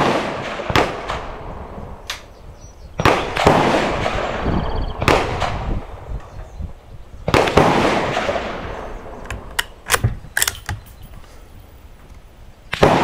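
Rifle shots at a shooting range: several sharp cracks spaced a second or a few seconds apart, each trailing off in a long echo, with a quick run of lighter sharp clicks a little past the middle. The rifle being fired at the bench is a Mossberg 640K in .22 Magnum, which is being sighted in.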